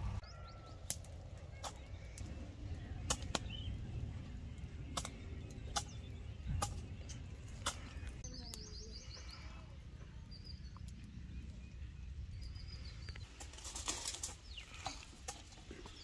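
Outdoor ambience: a steady low rumble with scattered sharp clicks through it, and a brief high bird chirp about eight and a half seconds in.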